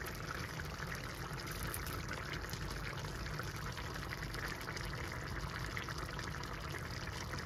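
Crab curry gravy bubbling steadily at the boil in a pan on the stove: a continuous hiss sprinkled with small pops.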